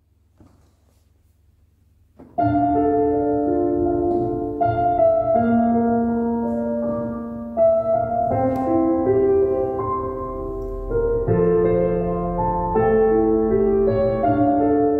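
Piano introduction playing slow, sustained chords, starting suddenly about two seconds in after a faint low hum.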